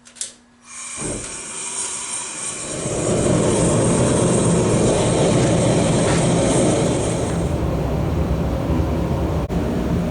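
A blacksmith's forge running with a steady, loud roar that starts about a second in and builds over the next two seconds, after a few light clicks.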